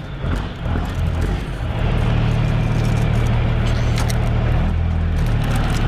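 Tractor engine sound, a steady low drone whose pitch steps up and down a few times.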